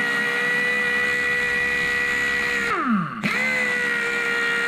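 Air-powered impact gun spinning a cleaning brush on the wheel hub, a steady high whine. About 2.7 s in the trigger is let off and the whine falls in pitch as it spins down, then it is squeezed again and comes straight back up to speed.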